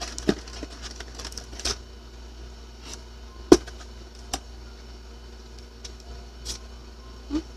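Scattered clicks and taps of small items being handled in the hands, with one sharp click about three and a half seconds in, over a low steady hum.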